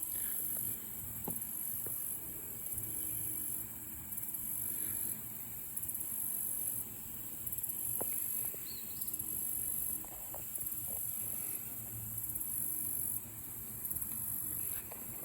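A chorus of summer insects chirring high-pitched in long, regular pulses, about one every second and a half, with a few faint ticks.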